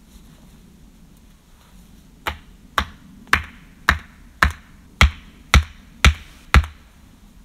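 A long wooden pole being rammed down with both hands: nine sharp knocks, about two a second, starting a couple of seconds in and getting slightly louder.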